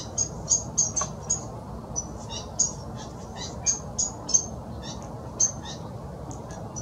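Small birds chirping: short, high call notes at an irregular rate of about two a second, over a steady low background rumble.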